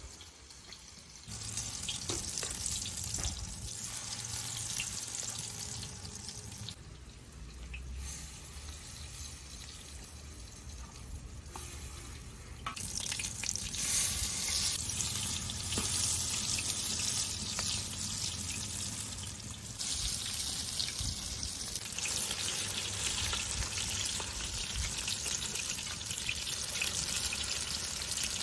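Food frying and sizzling in a hot pan, a steady hiss that shifts level in several stretches and grows louder about halfway through.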